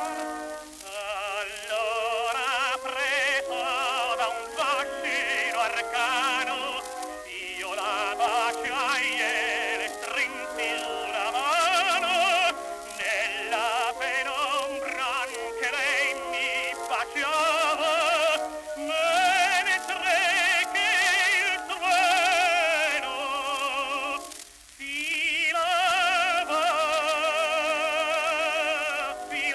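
Music from a 1921 Victor acoustic-recorded 78 rpm disc of a Neapolitan song for tenor and orchestra, with wide vibrato in the melody lines. The sound is narrow and boxy, cut off at the top, with a steady hiss of record surface noise. About 24 seconds in there is a brief pause before the music resumes.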